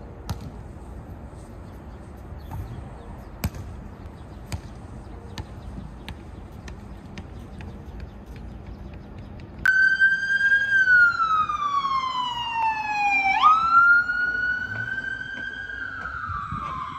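Faint scattered thuds of a basketball bouncing on an outdoor court, then about ten seconds in an ambulance siren starts abruptly. It wails in long slow sweeps, falling in pitch, jumping quickly back up, and falling again.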